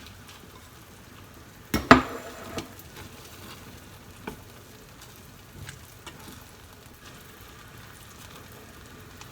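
Pot of dashi-based soup simmering with a steady soft bubbling hiss, with salmon and vegetables cooking in it. A sharp knock about two seconds in and a few lighter clicks later.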